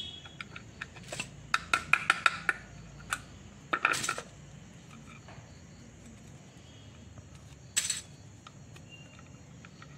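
Thin steel E-I laminations of a small power transformer's core being prised out and dropped, while the core of a burnt-out transformer is being dismantled. Light metallic clicks and clinks cluster in the first two and a half seconds. Short rattles come about four seconds in and again near eight seconds, with only faint ticks after that.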